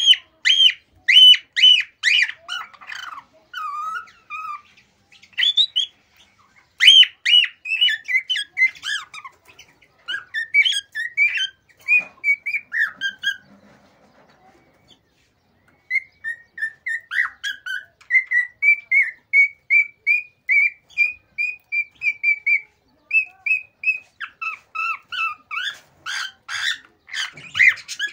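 Male cockatiel's excited courtship song: quick strings of whistled notes and chirps. Past the middle it breaks off for about two seconds, then goes on as a long run of short, evenly repeated whistles.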